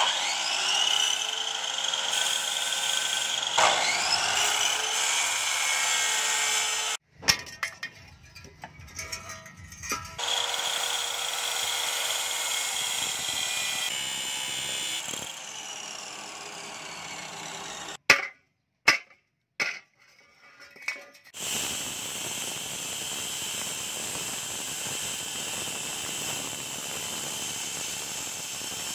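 Workshop sounds in quick cuts. An electric motor whines up to speed and runs steadily, twice near the start. Scattered sharp hammer blows on steel come later, and a steady angle-grinder run on the steel blade follows near the end.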